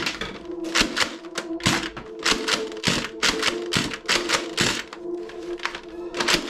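A fast, irregular run of sharp clicks and snaps, several a second, over background music with a few held tones.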